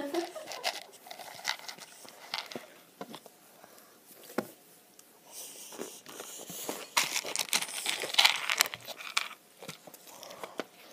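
Noodles being slurped and chewed with the mouth open close to the microphone: wet smacks and clicks, with a few louder slurps in the second half.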